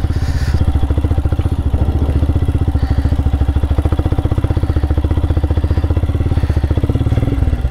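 Motorcycle engine running on an off-road trail, with a steady, rapid beat of exhaust pulses. The beat changes briefly near the end.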